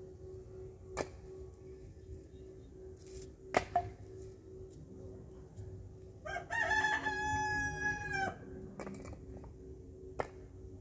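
A rooster crowing once, a single call of about two seconds that starts about six seconds in and is the loudest sound. Around it come a few sharp clacks of bricks being handled, over a steady low hum.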